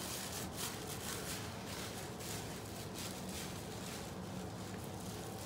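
Low room noise with a few faint soft rustles.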